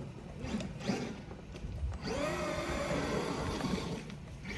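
Traxxas Maxx RC monster truck's brushless electric motor whining as the truck is driven: about halfway through, the whine rises in, holds for about two seconds, then drops away.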